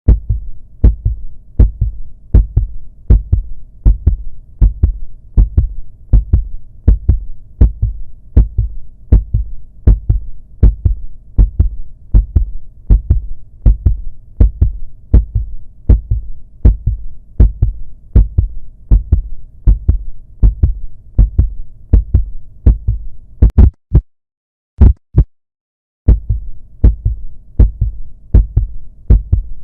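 Heartbeat sound effect: paired lub-dub thumps repeating steadily at about one beat a second. About 24 seconds in, the beat drops out for roughly two seconds, then resumes.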